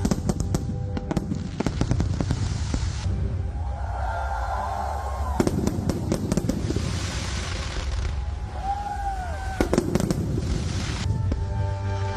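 An aerial fireworks display going off: a run of sharp bangs and crackles with stretches of high sizzling hiss, and two brief rising-and-falling whistles, about four and nine seconds in.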